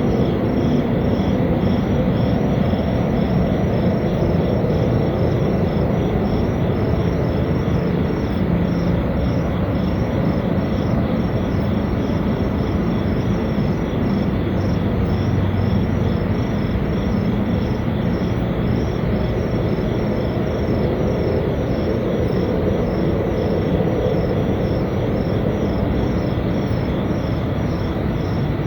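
A loud, steady, low rumbling drone of unknown origin, reported by residents as a strange noise. Behind it, insects chirp in a fast regular rhythm.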